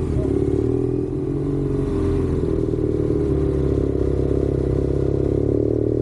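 Motorcycle engine running at a steady speed while riding, heard from the bike.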